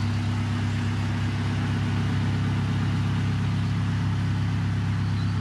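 Narrowboat engine idling steadily, an even low hum.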